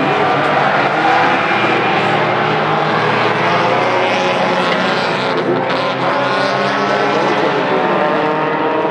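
Engines of small tuner-class hatchback race cars running hard at high revs around the oval, a loud steady drone whose pitch shifts a little as they lap.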